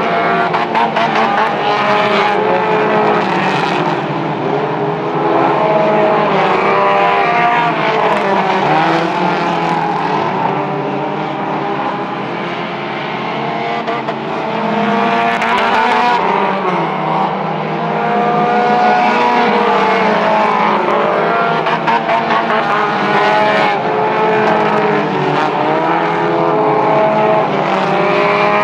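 Mini stock race cars' engines at racing speed on a dirt oval, several engines at once rising and falling in pitch as they accelerate and lift through the turns, easing a little about halfway through.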